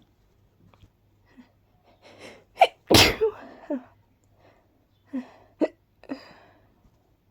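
A woman sneezing from a pollen allergy: gasping in-breaths about two seconds in, then one loud sneeze about three seconds in. Three short hiccups follow in the second half.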